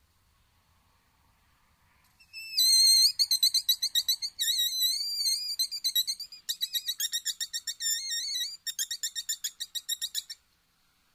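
Wolfers Harp mouth-blown predator call, blown to lure a fox. It starts about two seconds in and gives several runs of high, wavering squeals, some in quick short pulses and some drawn out, then stops abruptly.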